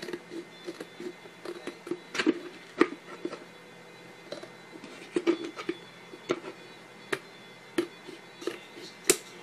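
Cardboard package backing being bent and folded by hand: irregular crinkles and sharp creasing clicks, the loudest just before the end.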